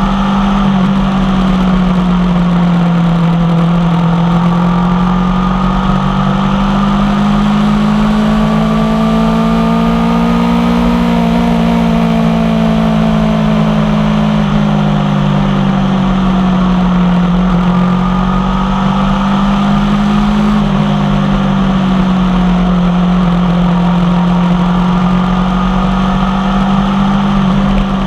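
Aprilia Tuono V4 1100 Factory's V4 engine, breathing through an unbaffled M4 exhaust, running steadily at cruising revs, its pitch rising gently to a peak about ten seconds in and easing back down, then swelling slightly again later.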